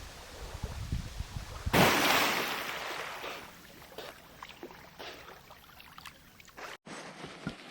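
Water splashing: a sudden loud rush of water about two seconds in that fades over a second or so, then light scattered drips and knocks.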